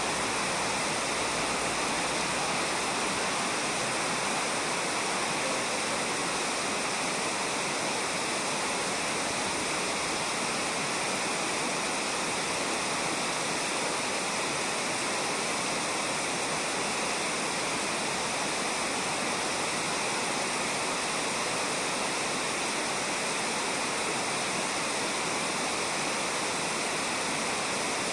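Steady rush of a river flowing over a shallow gravel bed.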